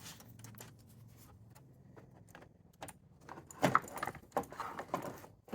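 Light metallic clinking and rattling as the battery cable and its hardware are handled while the car battery is set back in place, with the clicks coming thicker in the last couple of seconds.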